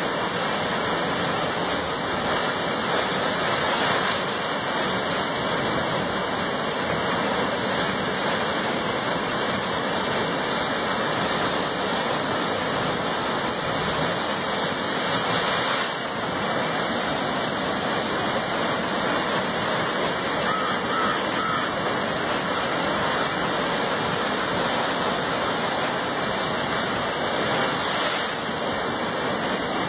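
Ocean surf surging into a narrow rock inlet, a loud, steady rushing of churning water and spray.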